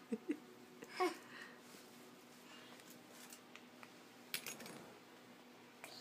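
A toddler's short giggly vocal sounds: a few quick squeaks at the start and a louder one about a second in. A couple of sharp clicks follow a little after four seconds.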